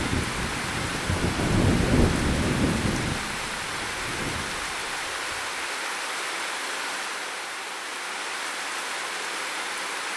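Steady heavy rain falling, with a low rolling thunder rumble in the first three seconds that fades away, leaving only the even hiss of the rain.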